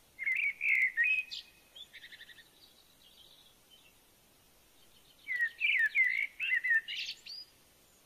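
Japanese white-eye singing: a quick twittering phrase near the start and another about five seconds in, with softer chirps between.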